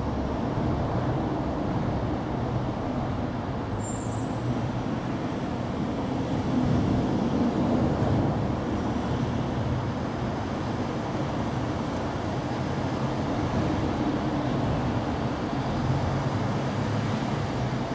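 Steady low background rumble, like road traffic, with a brief high chirp about four seconds in.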